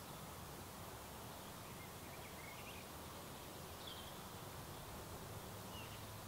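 Faint outdoor ambience, a steady hiss, with a few short distant bird chirps about two and a half, four and six seconds in.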